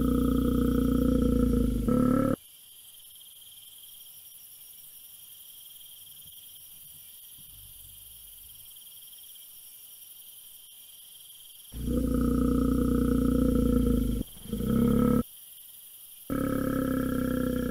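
Bear roar sound effect: a deep, loud roar over the first two seconds or so, then after a long pause of faint steady hiss, three more roars near the end, the first about two seconds long and the next two shorter.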